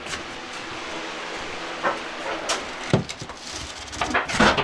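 Plywood cabinet panels being handled and set against each other: separate wooden knocks, then a rapid run of knocks and scrapes that is loudest near the end.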